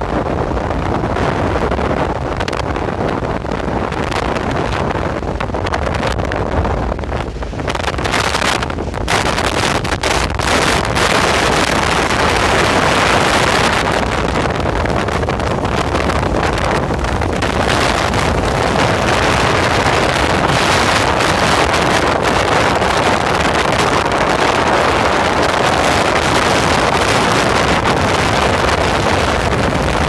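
Strong wind buffeting the microphone with a steady low rumble, over the hiss of Baltic Sea surf breaking on the beach. The surf hiss swells and gets louder from about ten seconds in.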